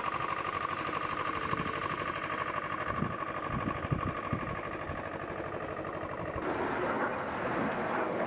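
Steady high-pitched engine whine of running flight-line machinery, with a few dull knocks near the middle. About six seconds in, the whine gives way to a broader rushing noise.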